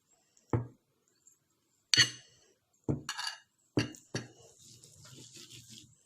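Pestle knocking sharply against a mortar (Indonesian ulekan and cobek) five times, then settling into quick, steady rhythmic grinding as young mango is crushed into chilli sambal.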